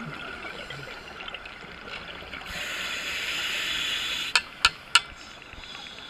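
Underwater scuba sounds: a diver's exhaled bubbles rush out of the regulator for about a second and a half, over a steady underwater hiss. Three sharp clicks follow about a third of a second apart, the loudest sounds here.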